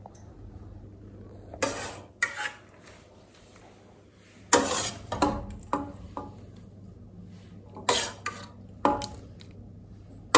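Spoon clinking and scraping against a plate as sticky rice is dished out: a string of short clatters, loudest about four and a half and eight seconds in.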